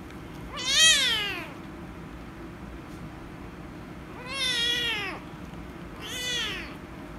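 Kitten meowing loudly three times while being petted on the head, each call rising then falling in pitch; the first, about half a second in, is the loudest and the last is the shortest. The uploader takes the meowing for anger at being petted.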